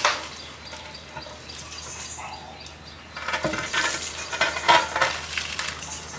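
Heavy concrete ring rolled on its edge over ground covered in dry leaves: a gritty crackling and scraping crunch from about three seconds in. A sharp knock at the very start.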